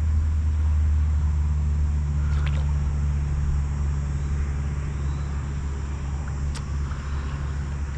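A steady low rumbling hum, with a couple of faint clicks about two and a half and six and a half seconds in.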